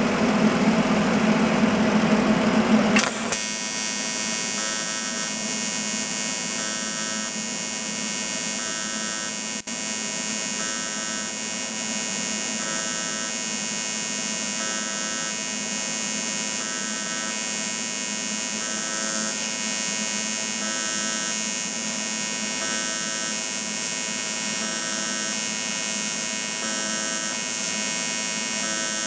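AC TIG welding arc on aluminum pipe, a steady electrical buzz with a faint pulse about once a second. For the first three seconds a louder whirring noise runs on top of it and cuts off suddenly.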